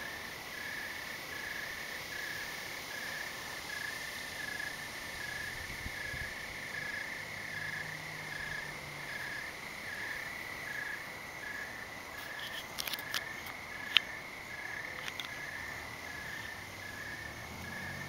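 Crickets trilling steadily, with another insect chirping in an even beat a little over twice a second. A few sharp clicks come in the last third; the loudest of them, about three-quarters of the way through, stands out above the insects.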